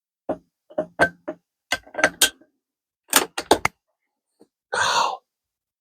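A quick run of about a dozen sharp clicks and clacks in small clusters over a few seconds, then a short rustle about five seconds in.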